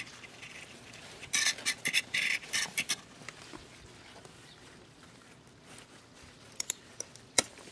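Eggplant leaves rustling in a run of short bursts as the plant is pushed aside and handled. Near the end come a few sharp clicks of garden shears snipping at an eggplant's stem.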